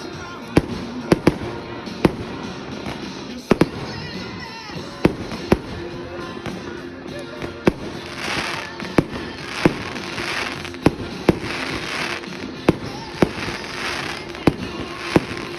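Firework cake battery firing, a sharp bang about once a second as its shells burst. From about 8 s in, crackling stars fizz between the bangs.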